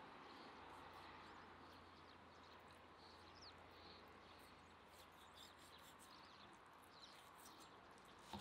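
Near silence: faint outdoor ambience with a steady low hum and a few faint bird chirps.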